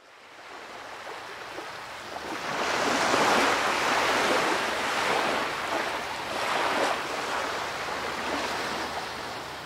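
Ocean waves washing, fading in from silence over the first couple of seconds, then rising and falling in slow surges.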